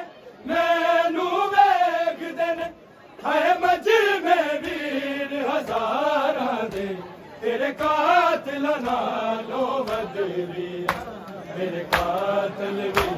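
Male voice chanting a Punjabi nauha, a Shia mourning lament, in long phrases with short breaks between lines. Near the end, sharp beats about once a second join in: the mourners' rhythmic chest-beating (matam).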